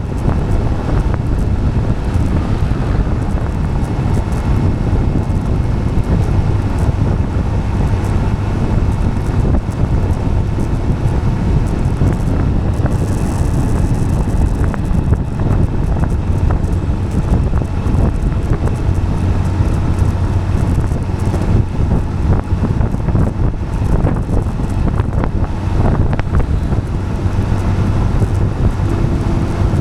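Tyres rolling steadily on asphalt, with wind buffeting the microphone over a low, even road hum.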